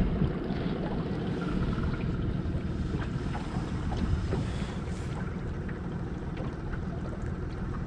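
Boat's outboard motor running steadily at low speed, a constant low rumble, with wind buffeting the microphone.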